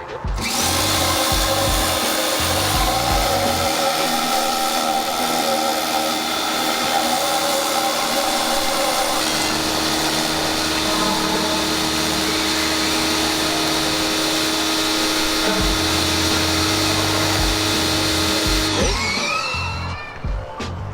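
Compressed-air blow gun hissing steadily as it blows the rinse water out of the intercooler. It starts abruptly and cuts off near the end, over background music.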